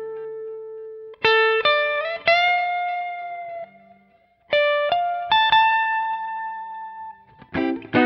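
Epiphone 1963 Firebird V electric guitar, played on its neck mini-humbucker as a slow single-note melody. Notes are held to ring out, some bent slightly up, with a brief pause about four seconds in and quicker picked notes near the end.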